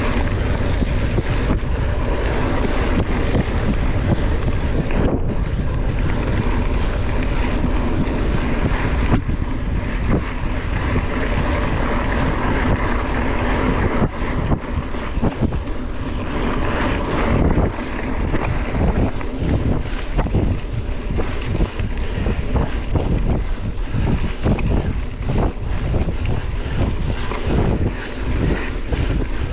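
Wind rushing over the microphone of a camera on a mountain bike being ridden hard, with irregular knocks and rattles from the bike over rough ground.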